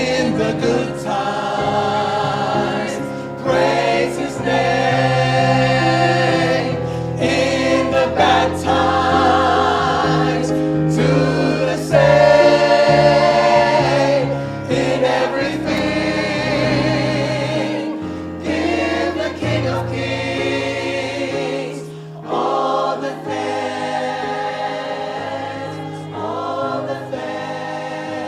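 Church choir singing a slow gospel song, voices holding long notes with vibrato over sustained low accompaniment; loudest about halfway through.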